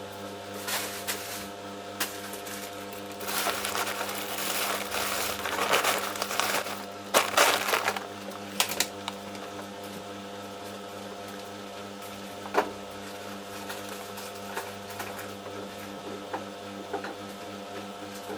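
Samsung washing machine running a 60 °C cotton cycle: a steady motor hum as the drum turns, with a louder, noisier stretch of clattering and clicks from about three to eight seconds in.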